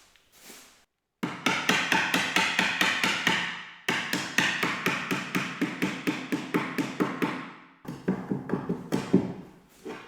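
Hammer striking in quick, even taps, about five a second, in three runs that each start abruptly.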